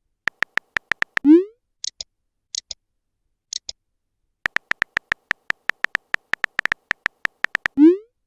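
Chat-app sound effects: two runs of rapid, even keyboard typing clicks, each followed by a short rising-pitch 'message sent' pop. A few small high blips come in the gap between the runs.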